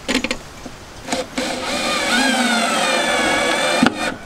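Red cordless drill driving a screw through a broom-holder clip into a plywood panel. After a few short clicks, the motor whines for about two and a half seconds, its pitch falling as the screw bites in, then stops with a click.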